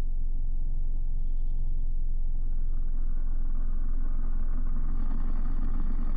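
Car engine idling steadily, a low rumble heard from inside the cabin, with a faint hiss growing from about halfway through.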